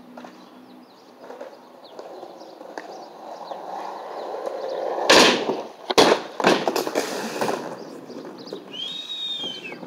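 Skateboard wheels rolling on concrete, growing louder, then a loud clack about five seconds in and two or three more clatters over the next second or two as the board hangs up on the coping and the skater comes down. Faint bird chirps in the background.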